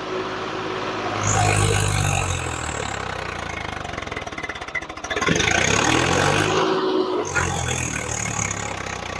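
Swaraj 855 FE tractor's diesel engine working hard under heavy drawbar load in low first gear, revs climbing about a second in and again just after five seconds. The tractor is struggling and barely manages to pull the implement.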